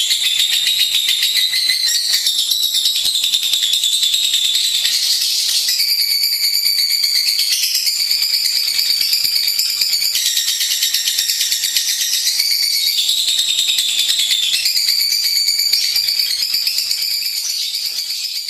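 Lovebird singing a long, unbroken, very rapid high-pitched trill, its pitch shifting every few seconds.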